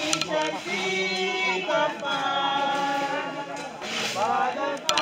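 A group of men and women singing a hymn together, holding long notes.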